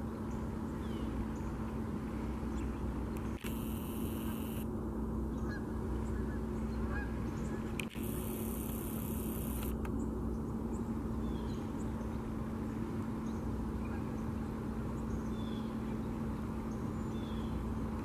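A flock of Canada geese flying overhead, honking now and then over a steady background hum.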